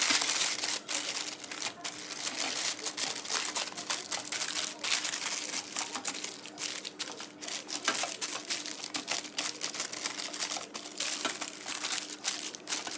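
Greaseproof paper crinkling and crackling as it is pressed and folded by hand into a metal baking tin, in a continuous run of irregular crackles.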